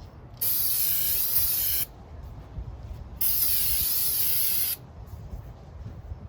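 Aerosol brake cleaner sprayed in two steady hissing bursts of about a second and a half each, washing old grease off a CV axle part.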